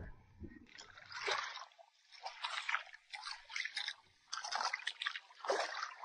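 Footsteps wading through shallow seawater, the water splashing with each step, roughly one step a second.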